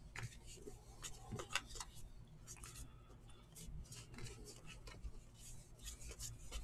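Cardboard trading cards being flipped through by hand, card stock sliding and flicking against card stock in faint, irregular soft clicks and rubs.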